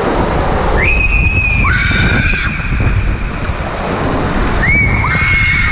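Water rushing and sloshing under a raft sliding down an enclosed tube water slide, with wind noise on the microphone. A child lets out long, high, steady screams about a second in and again near the end.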